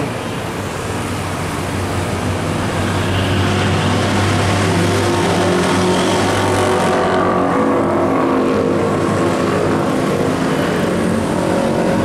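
Road traffic: a coach's diesel engine pulling away, its low hum fading over the first half, then the engines of passing cars, motorcycles and a truck.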